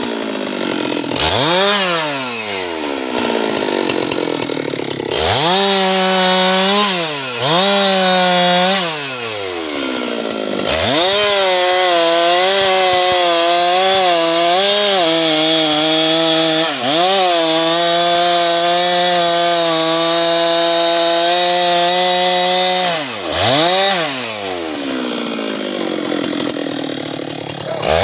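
Husqvarna 390 XP two-stroke chainsaw revving up and dropping back toward idle several times. It is then held at high revs for about twelve seconds, with slight dips in pitch, while cutting into teak wood. Near the end it revs up and down again.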